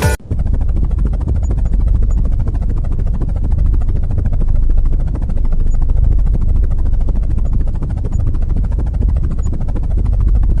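Small electric toy motor spinning the rotor of a homemade matchbox helicopter: a steady, fast whirr with a heavy low rumble.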